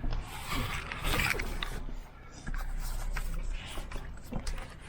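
Rustling and irregular clicks of things being handled, over a steady low rumble.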